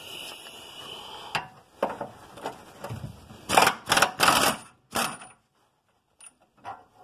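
Socket ratchet working a tight subframe bolt loose, a few light clicks at first, then a run of four loud ratcheting strokes in quick succession about halfway through.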